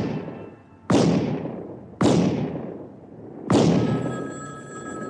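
A string of loud gunshots, roughly one a second, each ringing off over most of a second. Under the shot about three and a half seconds in runs a steady high ringing tone.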